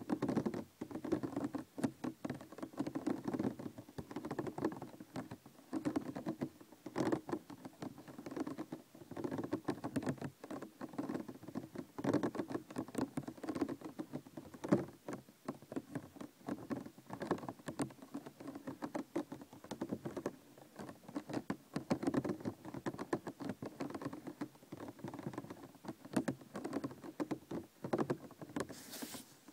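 Plastic container being handled: a dense, continuous run of light taps, clicks and scratches on the plastic.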